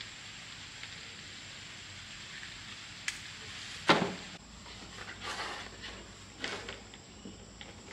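Work noises from handling the machine and its parts: a click, a loud knock about four seconds in, then scraping and rustling, over a steady hiss.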